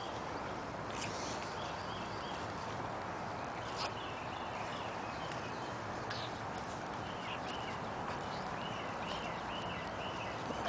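Outdoor ambience: a steady background hiss with repeated short, high chirps coming in quick runs, busier near the end, and a few faint clicks.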